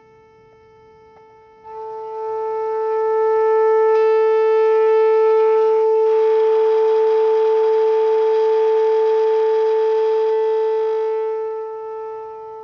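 Loudspeaker sounding a steady 440 Hz tone. It is turned up sharply about two seconds in, and the plastic lid with salt resting on the speaker buzzes along with it, so the tone turns loud and harsh. The tone is turned back down near the end.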